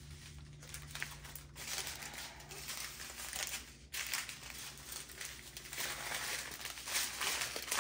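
Small clear plastic bags of diamond painting drills crinkling and rustling in uneven spells as a strip of them is lifted and sorted by hand.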